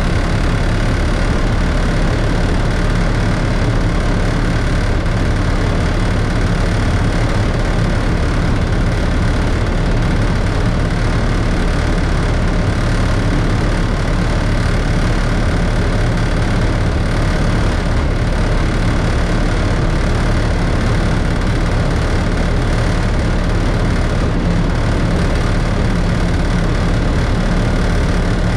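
Class 33 diesel locomotive's Sulzer eight-cylinder engine running steadily, heard from inside the driving cab.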